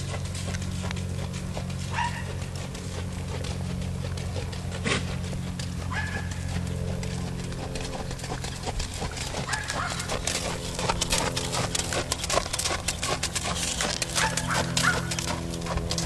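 Hoofbeats of a mule jogging on arena sand, growing louder and more frequent in the second half, over a steady low hum.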